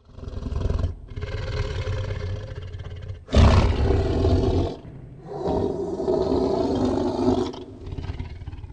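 A large animal roaring and growling in a run of about five long, rough calls with short breaks between them, the loudest about three and a half seconds in.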